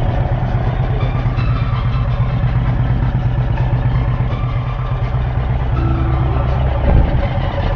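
Boat engine running steadily with a low, even drone, and a single knock about seven seconds in.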